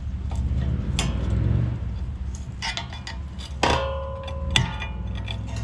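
Metal brake pads and tools clinking and knocking as worn rear brake pads are worked out of the caliper bracket: a run of sharp clicks and clinks, with one ringing clink a little past halfway, over a steady low rumble.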